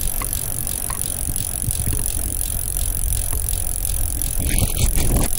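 Tandem bicycle being wheeled along on foot, its rear freewheel ticking steadily over a low rumble, with a brief louder rustle near the end.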